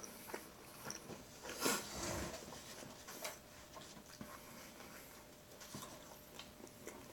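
Faint sounds of a person biting into a soft slider burger and chewing it, with small scattered mouth clicks and a slightly louder bite about two seconds in.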